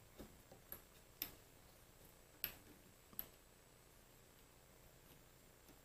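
Faint, sharp clicks and light taps of small metal mini-lathe apron parts being handled and fitted by hand, about five scattered through otherwise near silence.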